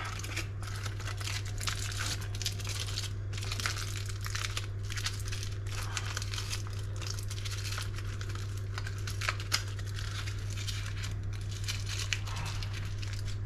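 Aluminium foil being crumpled and pressed by hand around a suckling pig's ears, a continual run of small crinkles, over a steady low hum.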